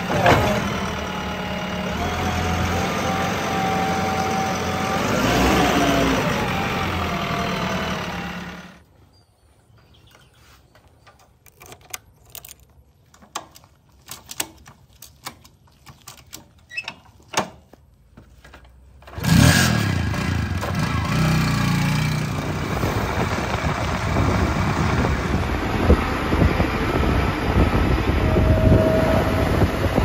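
JCB 3DX backhoe loader's diesel engine running, with a brief rise and fall in pitch about five seconds in. About nine seconds in it gives way to a run of scattered clicks and knocks as a motorcycle's kick-starter is stamped, with no engine catching. Loud engine running comes back suddenly about nineteen seconds in.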